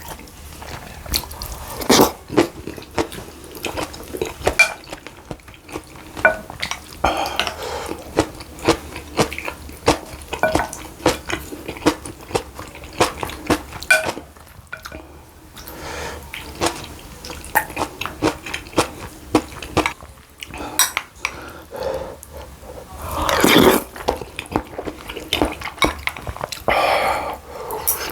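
Eating utensils clinking and scraping against the dishes of a meal of acorn-jelly rice soup and pan-fried dumplings, making many short clicks, with louder mouth sounds of eating at a few points.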